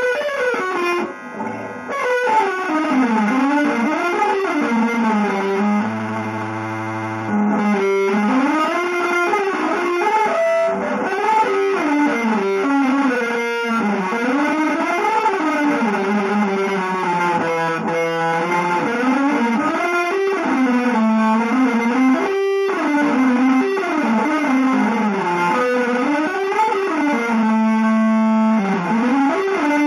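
Electric guitar improvising winding, fast single-note lines in a free-jazz, avant-garde manner, played through effects. Twice it settles on a long held note.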